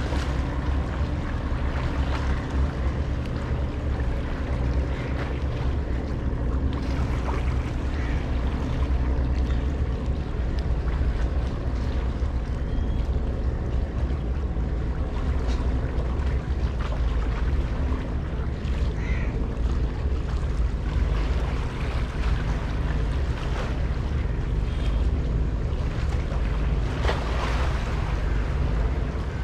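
Wind buffeting the microphone as a steady low rumble, with a steady low hum running underneath.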